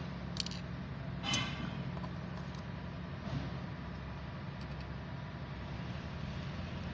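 Steady low engine-like hum. Over it come two light metallic clicks, about half a second and about a second and a half in, as steel valve parts are handled.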